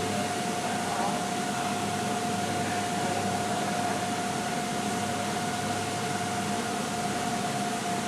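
Steady hum of industrial machinery running: one constant mid-pitched whine over an even hiss, with no change in speed or load.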